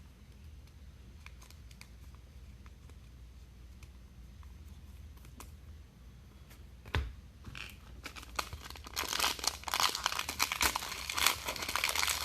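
Trading card pack wrapper being torn open and crinkled by hand: quiet handling with faint ticks, a single knock about seven seconds in, then crinkling and tearing that builds over the last few seconds.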